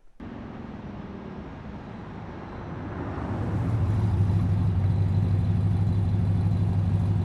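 A motor vehicle engine running with road noise. It starts abruptly, then swells to a loud, steady low drone about three seconds in, and cuts off sharply at the end.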